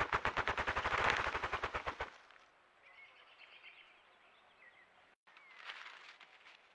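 A rapid series of sharp clicks or knocks, speeding up and then stopping abruptly about two seconds in. After it come a few faint bird chirps.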